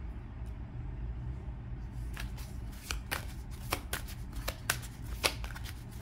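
Tarot deck being shuffled by hand, the cards slapping together in a run of quick, irregular clicks starting about two seconds in, over a low steady hum.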